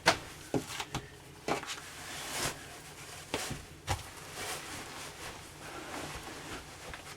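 A jackknife sofa being let down into a bed: several sharp knocks and clunks in the first few seconds as the frame and mattress are moved, then softer rustling.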